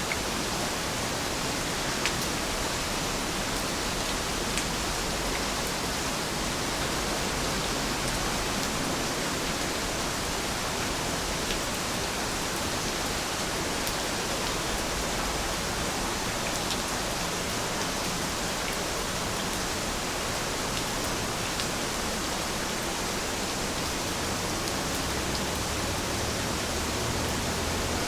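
Heavy rain falling steadily, an even hiss with a few faint drop ticks.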